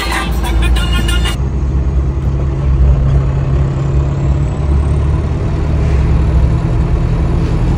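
A car on the road: a steady low engine and tyre rumble with a constant hum. Background music cuts off about a second in.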